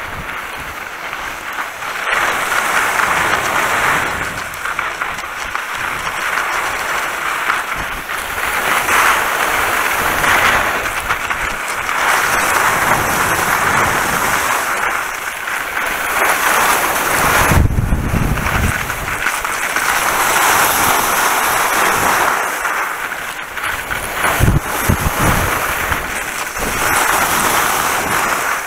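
Skis hissing and scraping over snow during a run down the slope, swelling and easing every few seconds with the turns. Wind buffets the camera microphone throughout, with two heavy low gusts, about two-thirds of the way in and near the end.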